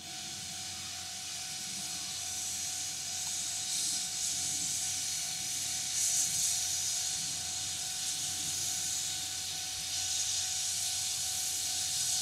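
Steam locomotive pulling away, hissing as it vents steam. The hiss starts suddenly and swells and eases several times.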